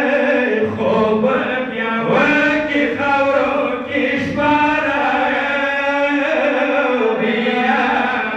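A male voice chanting a mourning lament (noha) in long, drawn-out melodic notes that glide from pitch to pitch.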